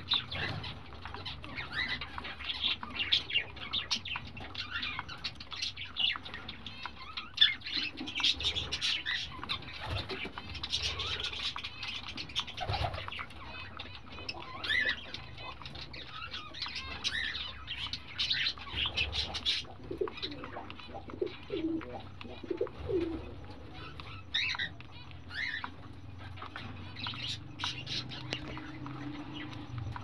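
Week-old cockatiel chicks making rapid, raspy begging chirps, busiest in the first two-thirds and thinner toward the end, over a faint steady low hum.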